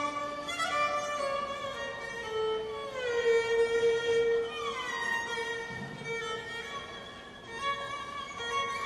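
Solo violin playing a slow melody of long held notes, with downward slides in pitch about three seconds in and again near five seconds.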